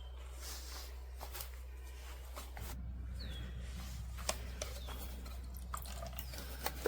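Faint scattered clicks and taps of hands working on small-engine parts during air filter and carburettor maintenance, over a low steady hum, with two short high chirps that fall in pitch.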